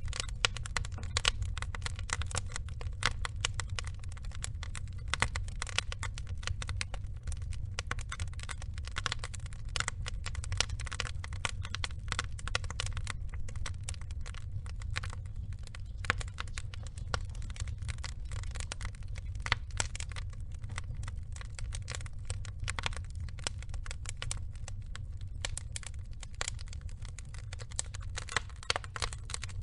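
Wood log fire crackling steadily, with many small irregular pops and snaps over a low rumble.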